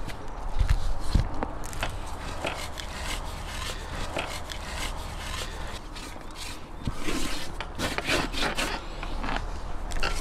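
Hands rubbing salt into the inside of a raw lamb carcass skewered on a spit, a run of rubbing and scraping noises that grows busier and louder about seven seconds in. There are a couple of dull knocks about a second in.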